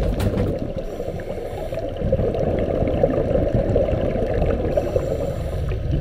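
Underwater sound heard through a camera housing: a muffled low rumble with the gurgle and crackle of a scuba diver's exhaled regulator bubbles, picking up again about two seconds in.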